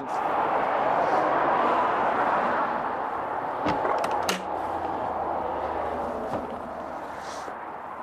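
A steady rushing noise that slowly fades, with two sharp clicks about four seconds in as the motorhome's side entry door latch is worked and the door pulled open.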